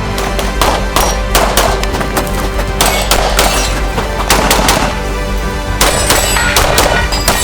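Handgun shots fired in quick strings of several shots each, over steady background music.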